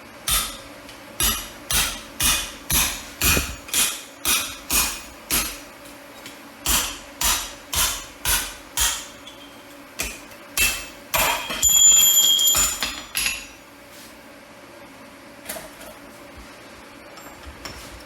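Hand hammer striking hot steel on an anvil, driving a drift through the punched hole: even blows about two a second in two runs. They are followed by a quicker flurry of strikes with a clear metallic ring, then a few light taps.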